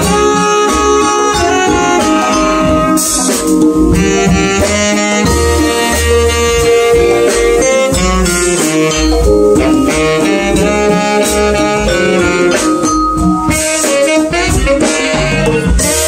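Small jazz band playing live: vibraphone struck with mallets, saxophone, drum kit with cymbals, and congas, in a busy, continuous passage.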